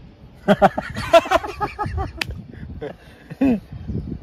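Men laughing and chattering, in short bursts of voice.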